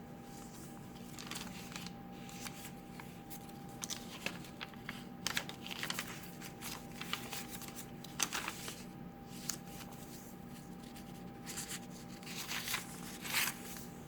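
Paper pages, tags and cards of a handmade junk journal being handled and turned, giving scattered rustles and flicks.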